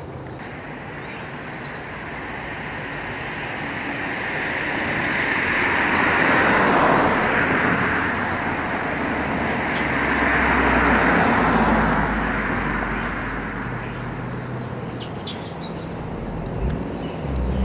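Road traffic going by: the rush of passing cars swells and fades twice, and a low engine rumble comes in near the end. Faint bird chirps sound over it.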